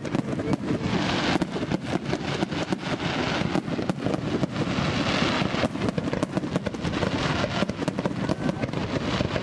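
Aerial fireworks bursting in quick succession: a dense, unbroken run of bangs and crackles, many to the second.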